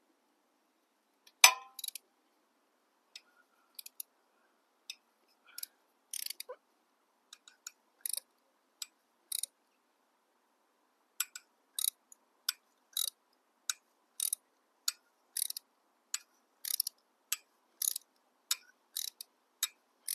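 Ratchet wrench clicking in short strokes as a rusted, stuck exhaust fastener is worked loose. The clicks come sparsely at first and settle into a regular rhythm of about two a second from around halfway, after a single sharp knock about a second and a half in.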